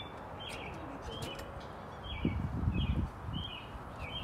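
Small birds chirping repeatedly, short high chirps about twice a second, with a brief low rumble around the middle.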